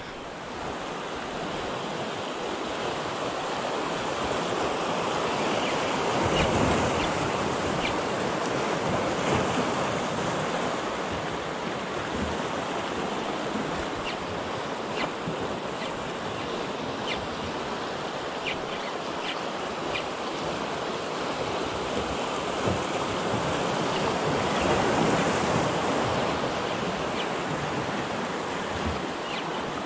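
Steady rush of sea water and wind on the microphone, swelling and easing a few times, with a few faint clicks.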